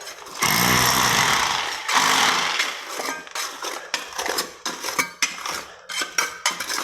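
A power tool runs loudly into the floor for about two seconds, then stops. It is followed by a string of quick, sharp clinks and knocks of metal tools against concrete and rubble.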